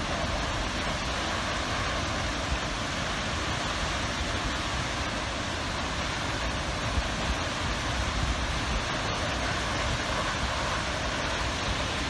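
Steady roar of a large waterfall in full flow: a constant rushing noise that holds even throughout.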